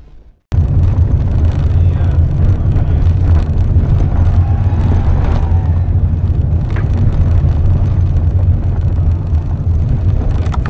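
Car cabin noise while driving: a steady, loud low rumble of engine and road noise heard from inside the car, starting suddenly about half a second in after a brief gap.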